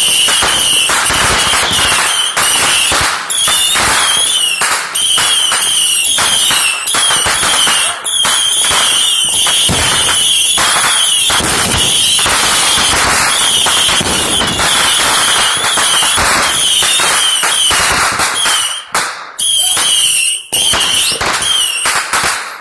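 A long, dense run of fireworks going off: rapid bangs and crackling with no let-up, under a high, wavering whistle. The din stops abruptly near the end.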